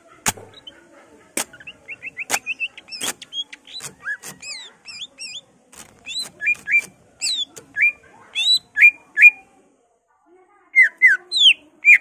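Cucak ijo (green leafbird) singing. It opens with four sharp clicking notes, runs into a fast string of short chirps and trills, then gives loud swooping whistles, which pause for about a second and resume near the end.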